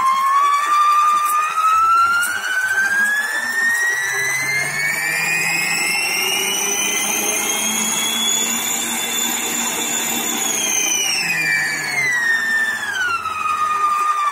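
Dough-maker stand mixer's motor running with an empty stainless steel bowl, its whine climbing steadily in pitch as the speed is turned up over about nine seconds, then falling back as it is turned down.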